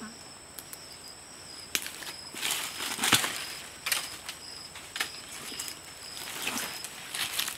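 Footsteps crunching and rustling through dry leaf litter and brush, loudest about three seconds in and again near the end. Insects drone steadily at a high pitch throughout, with short repeated chirps.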